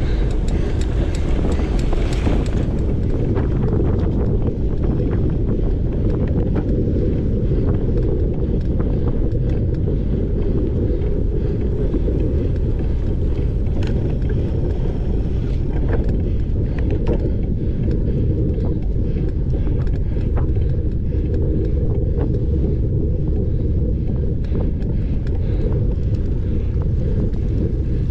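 Wind rushing over the camera microphone of a bike ridden at cyclocross race speed, a steady low rumble mixed with tyre noise on the dirt course, with scattered small clicks and rattles throughout.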